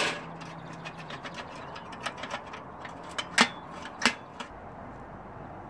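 Light metallic clicks and knocks of steel engine parts being handled on an expanded-metal mesh table, with two louder knocks about three and a half and four seconds in, then quiet.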